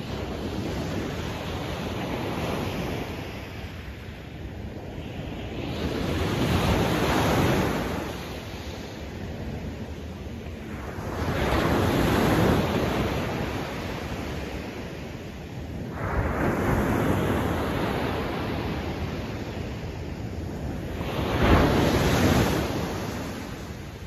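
Ocean waves breaking on a beach, the surf rising and washing out again about every five seconds. Four waves crash in turn, and the last is the loudest.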